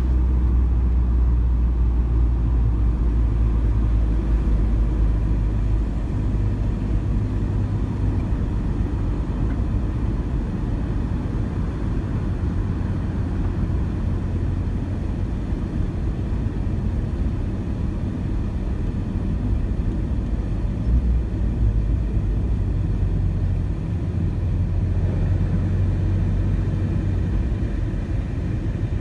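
Renault Clio 4 RS's 1.6-litre turbocharged four-cylinder engine and road noise heard from inside the cabin on track at speed: a low, steady drone.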